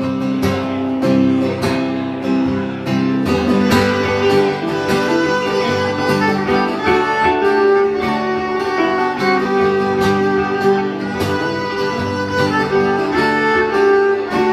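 Instrumental break of a live Americana band: a fiddle plays the melody over a strummed acoustic guitar and a second guitar.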